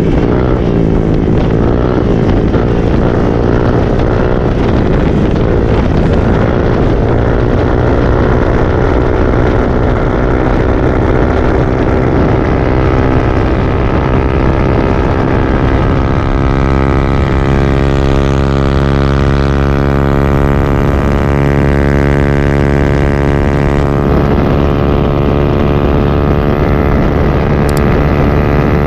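Honda Click 125 scooter's single-cylinder engine running through an Apido V4 aftermarket exhaust, repacked with a straight-through screen. The engine note wavers in pitch for the first half, then holds steady from about halfway through.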